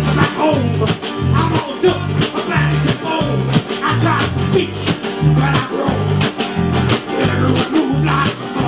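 Rock band playing live through an instrumental passage: guitar over a bass line that moves in even beats, with sharp percussion strokes.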